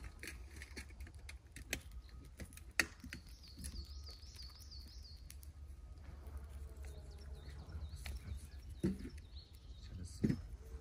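Small split wood sticks clicking and knocking together as they are picked up and sorted by hand, with a few louder knocks. A bird chirps a quick run of repeated high notes a few seconds in.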